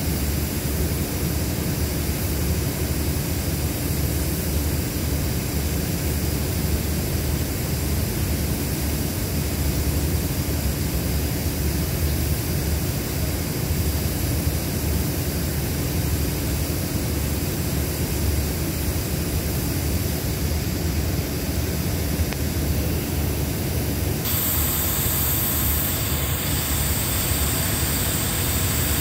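Steady low drone of a diesel passenger train standing at the platform with its engines idling, with no breaks or sudden sounds.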